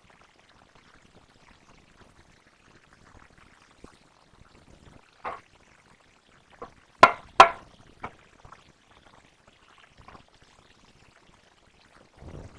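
Quiet handling noise broken by a few sharp knocks of hard objects, the loudest two about seven seconds in, half a second apart.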